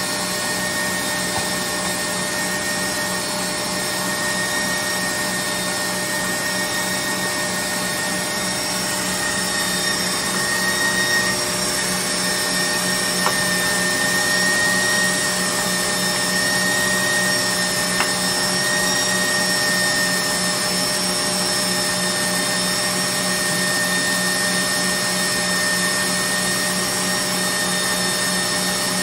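KitchenAid stand mixer motor running steadily, driving the Gourmet Pasta Press attachment as it extrudes noodles: a constant hum with a high steady whine, and two light clicks midway through.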